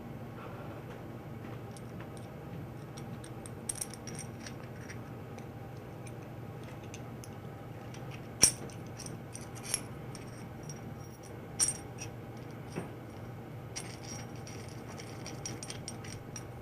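Small aluminum clamp parts and mounting screws clinking and clicking as they are handled and fitted together, over a faint steady hum. The sharpest click comes about halfway through, with a run of light ticks near the end.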